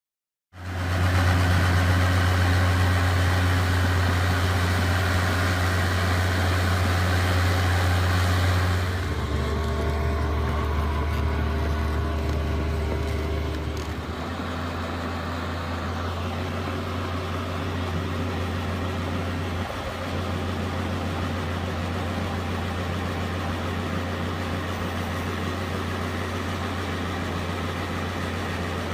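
Crawler excavator's diesel engine running steadily with a deep hum. It comes in suddenly, and the engine note changes and drops in level twice, about nine and fourteen seconds in, then holds steady.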